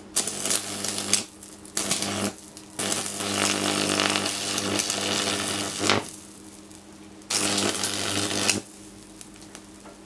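High-voltage arc from a microwave oven transformer crackling and buzzing against a smashed LCD TV panel in four bursts, the longest about three seconds, burning the panel's plastic.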